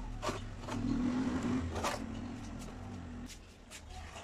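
A low, steady engine hum that fades about three seconds in, with scattered clicks and knocks over it.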